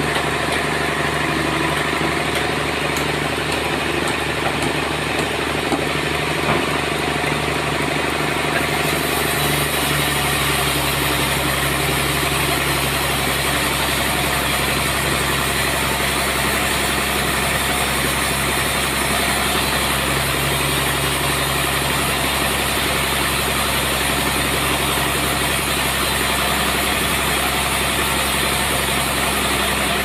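Band sawmill machinery running steadily, a constant motor drone with a steady hum. About nine seconds in, a harsher hiss joins it.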